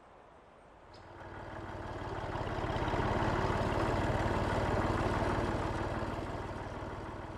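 Small vintage tractor engine running with a rapid, even firing beat as the tractor drives off down a track. It swells over the first few seconds and fades as it moves away.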